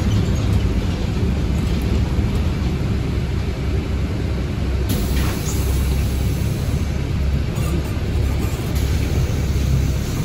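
Interior of a Temsa Avenue Plus low-floor city bus on the move: a steady low drone of engine and road rumble, with a brief squeak about halfway through.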